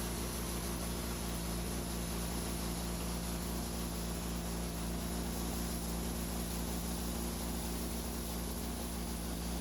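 A motor running at a steady speed with an even hum and hiss throughout, its pitch unchanging.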